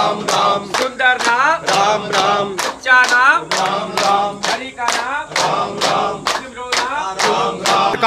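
A group of men singing together, clapping their hands in a steady beat of about three claps a second.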